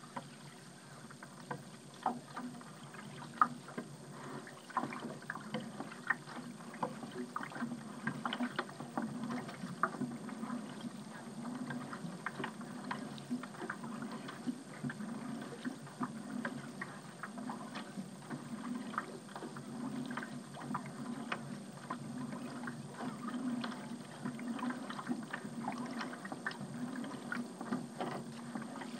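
A paddle working through water on a small paddled craft: many small splashes and drips at irregular moments over a steady low wash of moving water.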